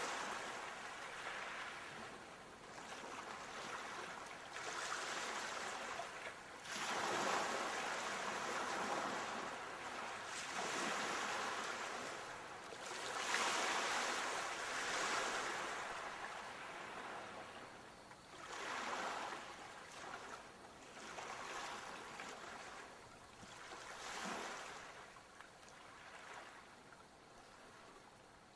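Sea waves breaking and washing up the shore, swelling and ebbing in surges every few seconds, quieter over the last few seconds.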